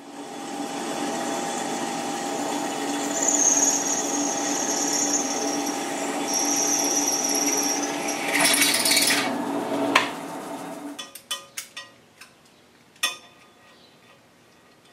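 Drill press running, its twist drill boring through a stack of clamped 6061 aluminum parts, with a high-pitched squeal from the bit as it cuts. The machine stops about ten seconds in, followed by a series of light metallic clicks and clinks as the C-clamp is undone.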